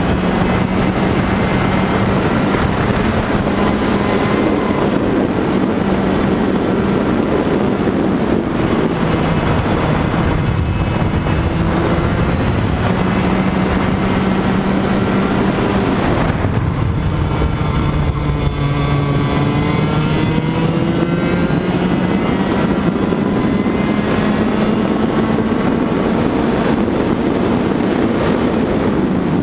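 Racing kart's two-stroke engine running hard, heard from onboard over wind rush. Its pitch holds high, falls sharply about sixteen seconds in, then climbs steadily again.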